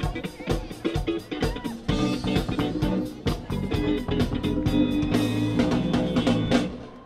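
Live band playing over the festival sound system: a steady drum beat with electric guitar and bass, breaking off near the end.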